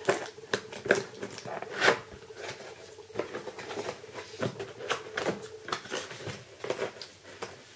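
A product box being opened and its packaging handled: irregular clicks, taps and rustles over a faint steady hum.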